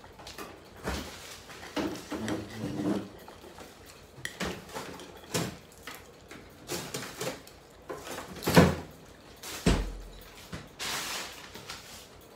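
Knife and fork clinking and scraping on a ceramic plate as a stuffed piadina is cut, in irregular taps. The sharpest clink comes a little past the middle, followed by a dull thump about a second later.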